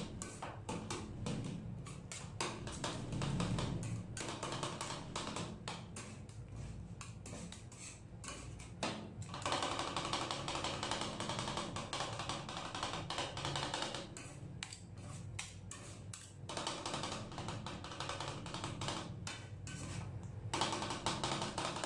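Two metal spatulas rapidly tapping and scraping on a metal ice cream cold plate, chopping fruit into the ice cream base: fast, uneven clicking that thickens into denser stretches twice.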